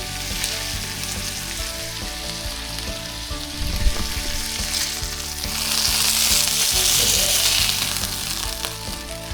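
Fish fillets frying in a hot pan: a steady sizzle that swells louder for about three seconds past the middle, with a single light knock a little before that.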